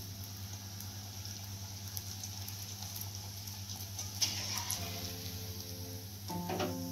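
Luchi deep-frying in hot oil in a kadai, a steady sizzle with crackles, and the steel spatula clinking against the pan now and then, sharpest about four seconds in. Background music comes in near the end.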